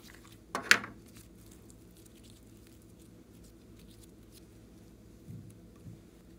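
Pink glitter slime being handled and squeezed: a sharp sticky crackle a little under a second in, faint small clicks as it is worked, then two soft thuds near the end as it is set down in a glass tray.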